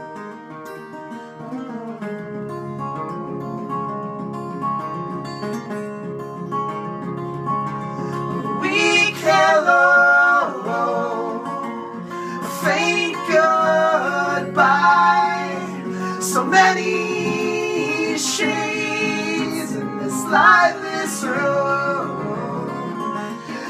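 Live band playing with acoustic guitars. Steady held tones open the passage, and from about eight or nine seconds in, singing voices come in louder over the guitars.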